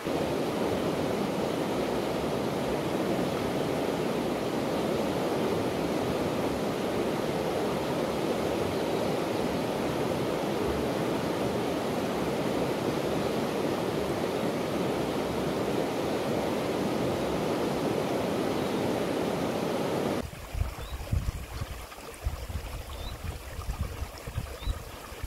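Fast-flowing river running over rapids, a steady, even rushing. About twenty seconds in it cuts off suddenly to a quieter scene with uneven gusts of wind buffeting the microphone.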